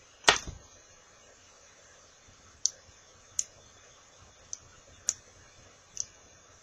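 Small clicks of metal tools and parts handled at a rebuildable atomizer while the flat-wire coil is being reshaped: one sharp, louder click about a quarter second in, then six lighter clicks about a second apart.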